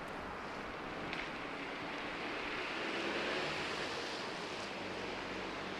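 Distant road traffic: a steady rushing noise that swells about three seconds in as a vehicle passes, then eases again.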